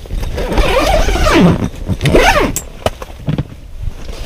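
Nylon fabric of a pop-up ice shelter rustling and scraping as someone pushes out through it in a hurry, with a couple of sharp knocks about three seconds in and rumbling handling noise on the body-worn camera.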